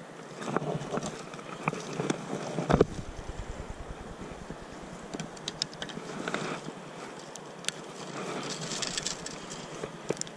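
Wind rumbling on the microphone over the steady rush of creek water, with scattered clicks and knocks from handling the fly rod and reel; the loudest knock comes a little under three seconds in.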